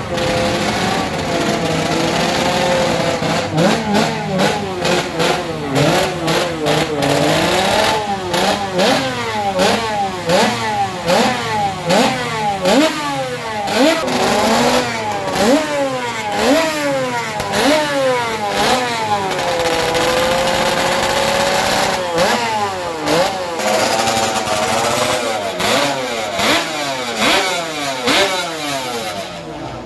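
Vintage racing motorcycle engine revved hard while standing still, in quick repeated throttle blips, its pitch rising and falling about once a second. About two-thirds through it is held at steady revs for a couple of seconds, then the blipping resumes.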